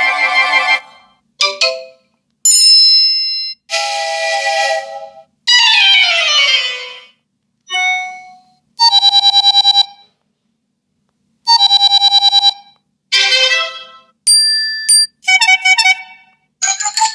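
A run of short Apple iPhone 13 Pro tones played one after another, about a dozen in all, each a second or so long with brief gaps between them: chimes, a falling glide about six seconds in, and two rapid warbling trills.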